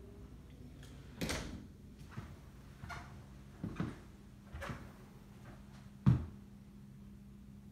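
Footsteps thudding across a floor, about one a second, with the sharpest knock about six seconds in, over a low steady hum.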